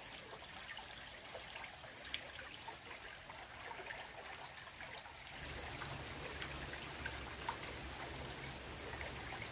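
Small, slow-flowing stream trickling among rocks: a steady faint water hiss with small drips and splashes. A low steady hum comes in about halfway through.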